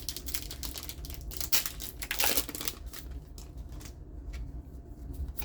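A trading-card booster pack wrapper being crinkled and torn open, with rustling and clicks of handling; the loudest tear comes about two seconds in.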